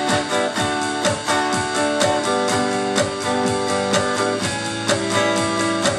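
Guitar and an electronic drum kit playing an instrumental break of a country-rock song, with strummed chords over a steady drum beat and no vocals.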